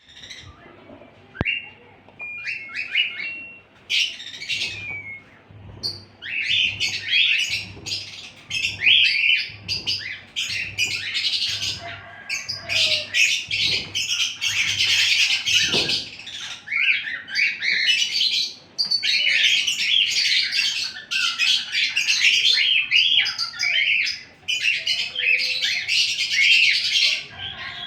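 Many small birds chirping and twittering at once, a few calls at first and then an almost unbroken chorus of quick high chirps.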